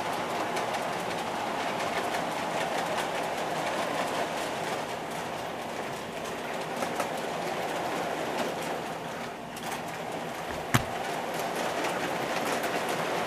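O scale model diesel train running along its track: a steady rolling sound of wheels and motor, sprinkled with many faint clicks. One sharp click stands out about eleven seconds in.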